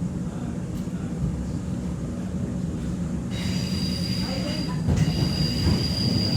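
X'Trapolis 2.0 suburban electric train running with a steady low rumble. About halfway through, a steady high-pitched wheel squeal starts up and keeps going.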